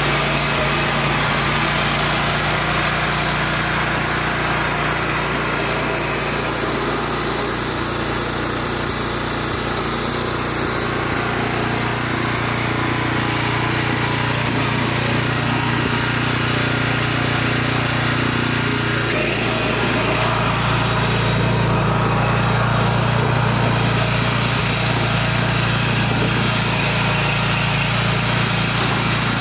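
BCS walk-behind rear-tine tiller's small single-cylinder gasoline engine running steadily under load as the tines churn up sod and soil. Its note shifts slightly about two-thirds of the way through.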